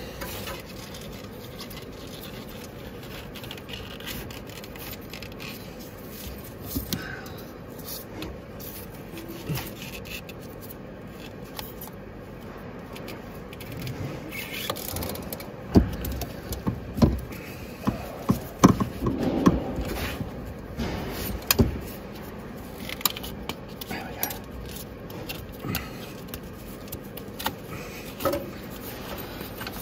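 Hand-tool work on a truck engine's belt drive: a steel breaker bar on the fan belt tensioner scraping and clinking against metal. A run of sharp knocks and clanks comes about halfway through as the tensioner is levered back and the belt worked off.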